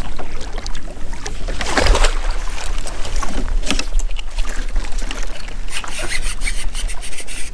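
Kayak under way on open water: irregular splashes and knocks, with a steady low wind rumble on the microphone.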